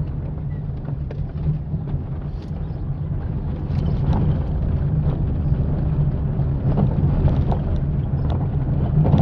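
A Fiat Palio being driven, with steady engine and road rumble that grows a little louder about a third of the way in. A few faint, short knocks come through: the front-suspension noise that is still there after the stabilizer link was replaced, described as discreet.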